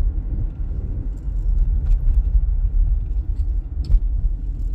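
Low, steady rumble of road and engine noise heard inside a moving car's cabin, with a couple of faint clicks.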